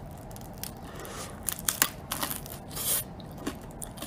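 Crunchy bites and chewing of a crusty toasted bread slice with a green topping, close to the microphone: a run of sharp crackling crunches, the sharpest a little under two seconds in.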